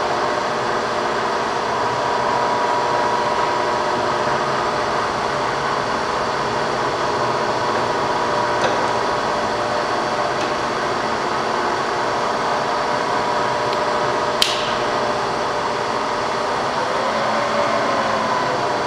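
Bridgeport Series 1 vertical milling machine with its 2 HP variable-speed head running, the spindle turning with a steady mechanical whine made of several held tones. A single sharp click comes about two-thirds of the way through.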